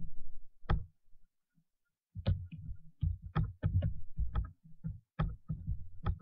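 Computer keyboard being typed on: irregular key clicks, each with a dull thud under it. There is one click, then a pause of about a second, then a quicker run of keystrokes.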